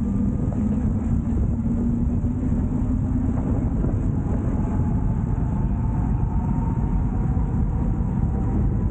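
Wind rumbling over the microphone of a moving 72-volt Wolf Warrior King electric scooter, with the motor whine running under it. The whine is a steady low tone for the first three seconds, then a higher, fainter tone from about five seconds in.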